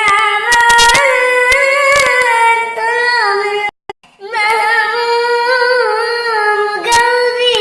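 A high voice singing unaccompanied, holding long notes with wavering, ornamented turns in pitch. The singing breaks off for a moment a little before the middle, then carries on.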